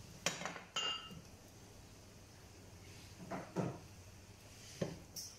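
Red silicone spatula scraping and knocking against a nonstick frying pan as chopped spinach and garlic are stirred: a few separate strokes, two near the start and several more in the second half.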